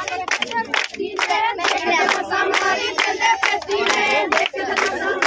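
Group of women clapping in steady time for Punjabi giddha, about three claps a second, while several voices sing a boli together over the claps.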